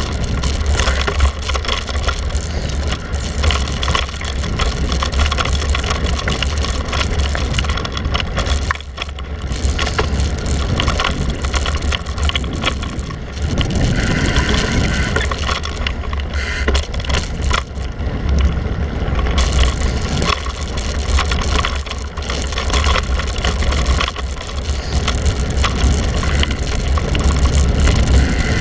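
Mountain bike riding a rough dirt and stone singletrack: tyres on loose gravel and the bike knocking and rattling over bumps, under a steady low wind rumble on the bike-mounted camera's microphone.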